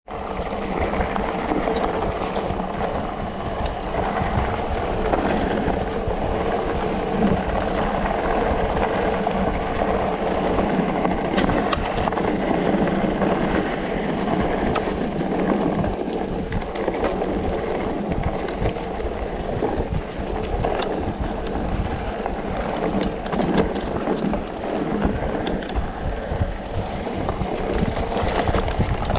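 Specialized Turbo Levo electric mountain bike rolling over a dirt and gravel trail: a steady rumble of tyres on loose ground, with wind on the microphone and scattered clicks and rattles as the bike goes over bumps.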